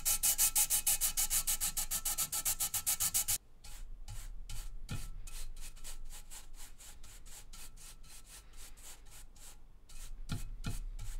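Sanding stick rubbed quickly back and forth over a 3D-printed plastic printing plate, even rasping strokes about seven a second, giving the top layer a light sanding to smooth it. After about three and a half seconds it changes abruptly to softer, slower strokes of a brush sweeping over the plate.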